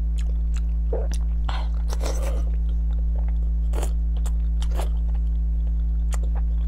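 A person chewing food with wet mouth clicks and smacks, plus a few louder squishy chewing noises, over a loud steady low hum.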